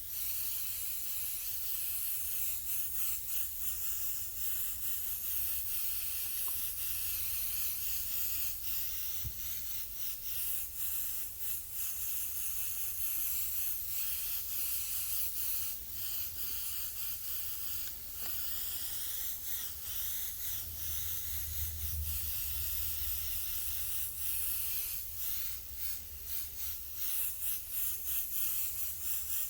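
Compressed-air paint sprayer hissing as paint is sprayed, the air cutting in and out many times in short passes, over a steady low rumble.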